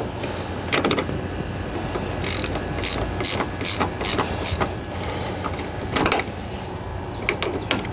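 Hand ratchet wrench clicking in repeated short strokes, about two or three a second for a couple of seconds, as a bolt is run in during starter reinstallation, with a few more single strokes later on.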